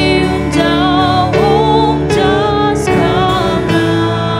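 A woman and a man singing a Garo-language hymn together to a strummed acoustic guitar. The voices stop near the end and the guitar plays on.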